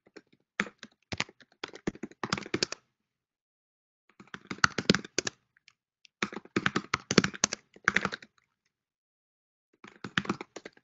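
Typing on a computer keyboard: several quick runs of key clicks separated by short pauses, as terminal commands are keyed in.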